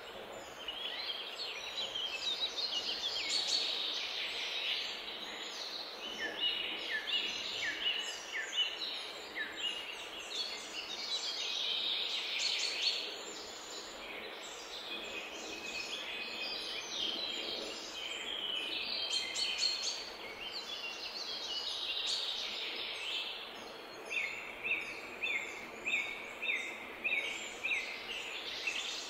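Many birds calling at once: dense, overlapping high chirps and calls over a steady background hum, with a run of evenly spaced calls, a little more than one a second, near the end.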